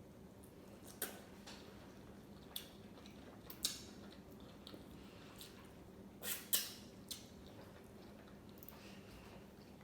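Close-miked eating: quiet chewing with scattered wet mouth clicks and smacks, the loudest two coming about six seconds in, over a faint steady hum.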